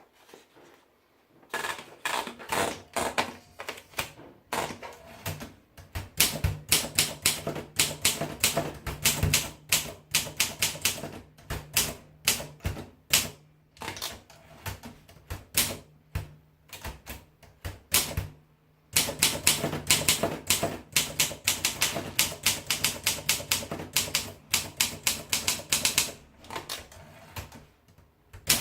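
Olympia SM3 manual portable typewriter being typed on: quick runs of sharp key strikes, several a second, with short pauses between runs.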